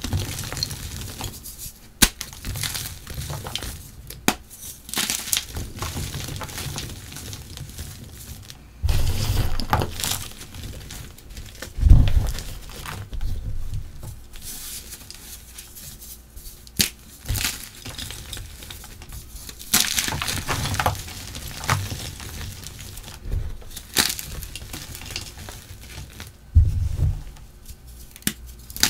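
Charcoal-dusted chalk blocks crushed by hand into a bowl of crumbled chalk: repeated crunching and crumbling with many sharp snaps, and a few louder dull thumps, the loudest about twelve seconds in.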